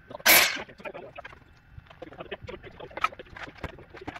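Pallet lumber being handled: a brief loud rasp near the start, then scattered light knocks and clatter of wood.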